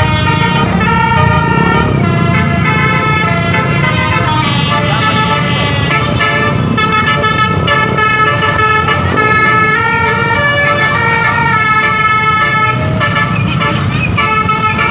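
A bus's 'Basuri' musical telolet horn playing a melody of held notes that step from pitch to pitch, over a low rumble.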